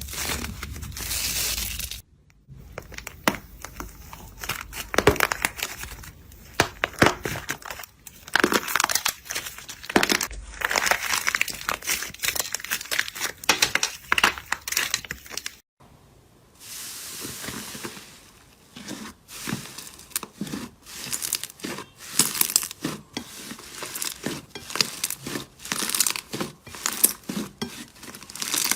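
Slime being squeezed and worked by hand, making dense rapid crackles, pops and squelches. The sound cuts off abruptly about two seconds in and again near sixteen seconds, each time followed by a short steady hiss and then more crackling.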